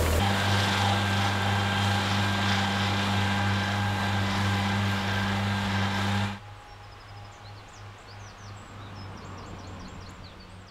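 Farm tractor engine running steadily in the hay field, a loud even drone with a higher steady whine, which cuts off abruptly about six seconds in. After that only a faint low hum and birds chirping.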